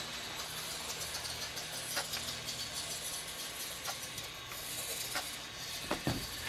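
Small electric radio-controlled cars running across grass: a steady whirring hiss from their motors with scattered light clicks and rattles.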